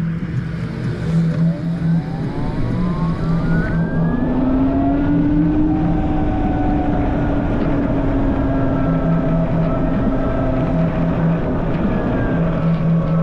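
Ryvid Anthem electric motorcycle's motor whine, rising in pitch as the bike accelerates over the first few seconds, then holding fairly steady at speed and easing down slightly near the end. Heavy wind noise on the camera microphone runs under it.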